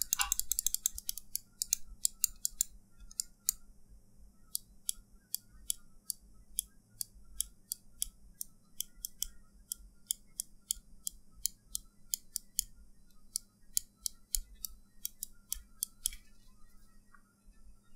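Glorious Model D gaming mouse buttons clicked over and over close to a microphone: crisp, sharp clicks in uneven runs, sometimes several a second. Foam is packed into the click shells, so the clicks come without squeak or hollowness.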